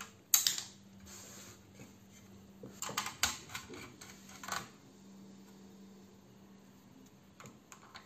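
Scattered sharp clicks and light metallic clinks as the metal backplate of a Radeon R9 380 graphics card and its small screws are handled and lifted off: the sharpest click about half a second in, a quick cluster around three seconds, and a few lighter ones later.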